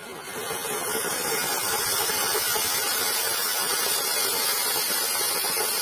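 Flower pot (anar) ground fountain firework spraying sparks with a steady hiss that builds over the first second.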